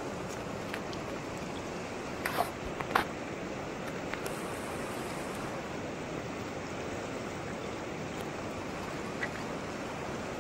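Steady rushing of a shallow mountain river flowing over rocks. A few short sharp clicks or knocks cut through about two to three seconds in.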